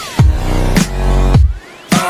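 Background electronic dance music with a heavy bass beat and a rising sweep into a short break near the end.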